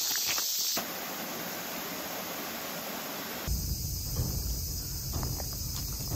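Footsteps crunching on a gravel path for the first second, then a steady hiss, and from about three and a half seconds in, quieter outdoor ambience with a low rumble and a few faint ticks.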